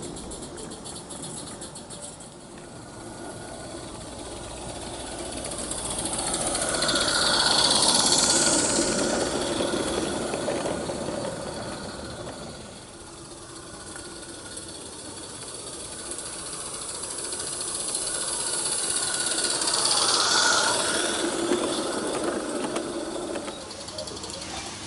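Roundhouse Lady Anne live steam garden-railway locomotive and its coaches running round a loop, with a hiss and rattle on the rails. The sound swells to a peak about eight seconds in, fades, and swells again about twenty seconds in as the train passes twice.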